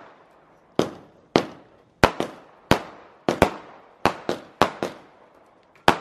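A multi-shot consumer firework cake firing a rapid barrage: about a dozen sharp bangs, unevenly spaced and some in quick pairs, each fading away within a fraction of a second.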